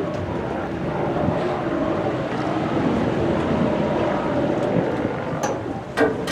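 Catamaran tour boat's twin turbocharged Detroit Diesel engines running steadily, with wind noise on the microphone. A short sharp click comes about six seconds in.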